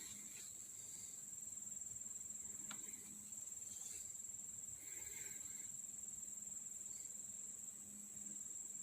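Crickets trilling steadily, faint and high-pitched, with a faint knock a little under three seconds in.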